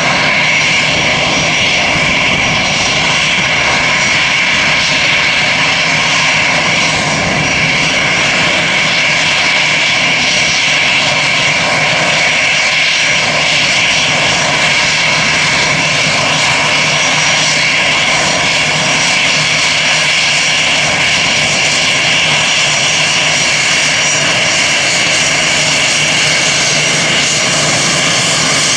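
Twin jet engines of an Airbus A320-family airliner idling at taxi power: a steady high-pitched whine over a rushing hiss that holds level throughout.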